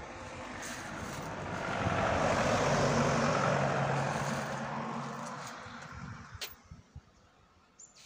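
A road vehicle drives past: engine and tyre noise rise to a peak about three seconds in and fade away by about six seconds. A couple of sharp clicks follow near the end.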